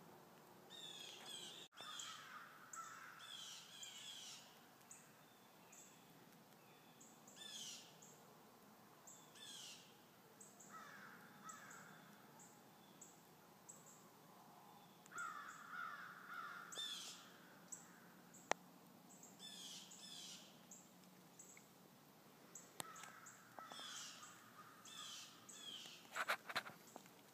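Wild birds calling faintly: many short, high, falling notes mixed with rougher calls lower in pitch, with a few sharp clicks near the end.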